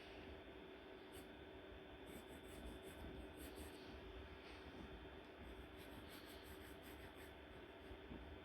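Faint scratching of drawing strokes in short quick runs with pauses between, over a low steady hum.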